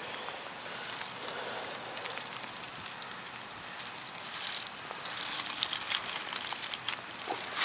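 Footsteps through dry fallen leaves and sticks: a steady run of crunching and crackling as the leaf litter is trodden, with a louder crunch near the end.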